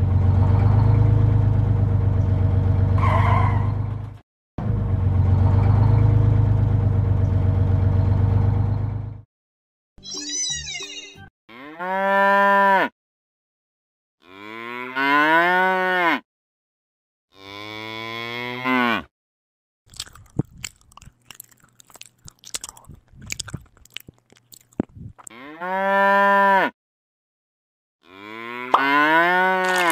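Two long, steady low drones in the first nine seconds, then a series of about five cow moos, each a second or two long, rising and then falling in pitch, with some scattered clicks in between.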